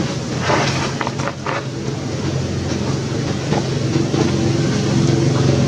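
Steady engine hum of a motor vehicle running, with a few short clicks between about half a second and a second and a half in.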